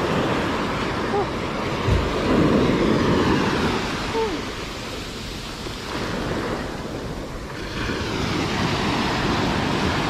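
Caribbean surf breaking and washing up over the sand. It swells louder about two seconds in, eases off in the middle, and builds again near the end.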